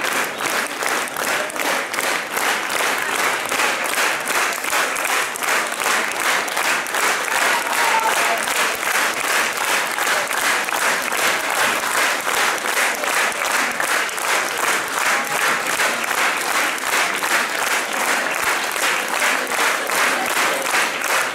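Large audience applauding, clapping together in a steady rhythm.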